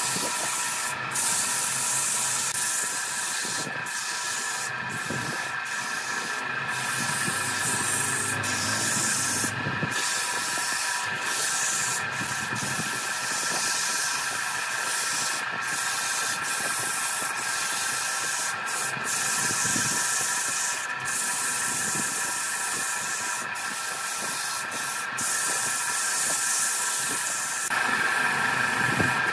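Sandpaper pressed by a gloved hand against a wooden spindle turning on a lathe: a steady hissing scratch with many brief breaks, over the steady whine of the lathe's electric motor.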